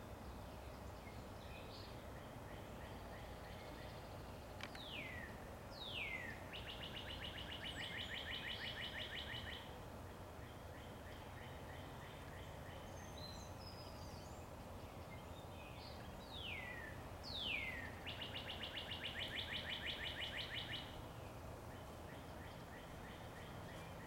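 A songbird sings the same song twice, about ten seconds apart: each time two sharp down-slurred whistles, then a fast, even trill lasting about three seconds. Steady low background noise sits under it.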